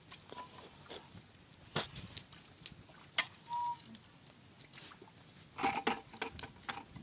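A person wading through a shallow muddy ditch with a plastic bucket and a wooden stick: footsteps in mud and scattered knocks and clicks, the sharpest about three seconds in and a quick cluster near the end, over a faint high trill.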